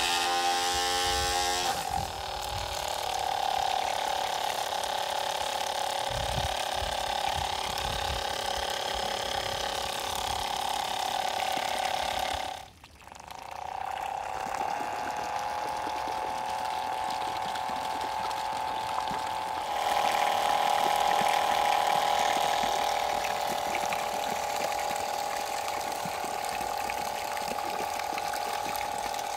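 Small high-rpm DC motor, built to look like a mini diesel engine, running a centrifugal water pump: a steady whine with water rushing and splashing from the pumped jet. The sound breaks off briefly about halfway through, then carries on.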